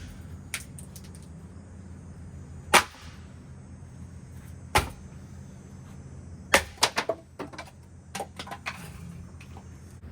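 Metal parts of a Hampton Bay Minuet 2 ceiling fan being struck and broken apart: a loud sharp strike about three seconds in, another near five seconds, and a quick run of four clanks around seven seconds, with lighter knocks between. A steady low hum runs underneath.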